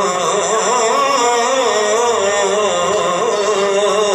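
A man's voice reciting an Urdu naat, singing long, ornamented notes that waver up and down in a slow vibrato.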